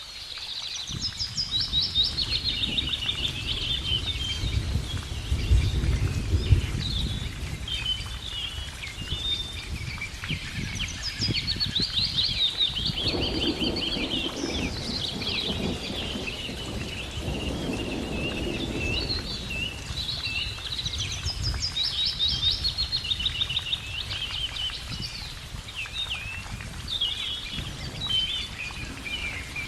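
Several birds chirping and singing at once in a continuous chorus of quick, high trills, over a low rumble that is strongest early on.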